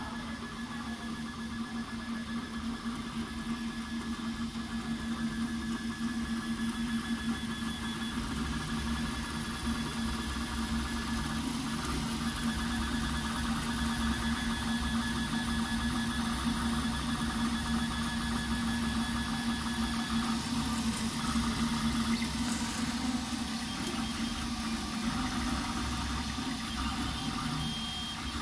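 MINGDA large-format FDM 3D printer running mid-print: its stepper motors whine in shifting tones as the print head moves, over a steady hum.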